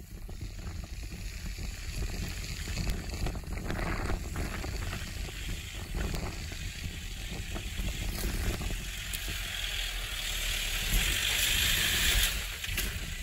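Toyota Land Cruiser KDJ120's turbodiesel engine pulling the SUV up a steep loose-dirt slope, a steady low rumble. A hiss grows louder near the end.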